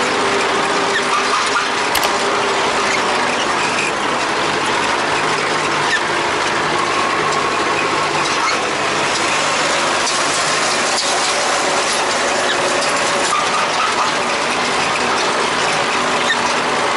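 MTZ-80 tractor running steadily at work, with a dense continuous rattle and clatter of machinery over the engine.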